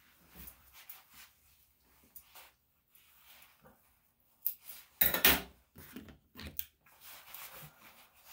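Soft rustling and light clicks of grooming tools being handled around a dog's paw, with a louder clatter about five seconds in.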